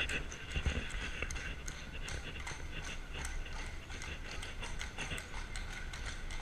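A carriage horse's hooves clip-clopping at a walk on cobblestones, irregular sharp clicks over a steady low rumble.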